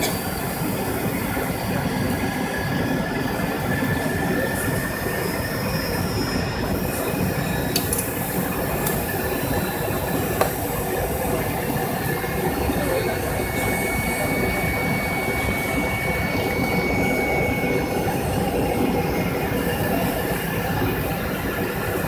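Steady roar of an airliner's passenger cabin on descent: engine and airflow noise heard from inside, with faint high whines over it and a single short click about halfway through.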